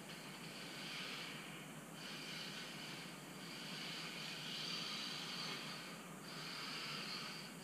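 Kyosho Mini-Z RC car's small electric motor whining as it drifts, with its tyres hissing across the floor, dipping briefly a few times.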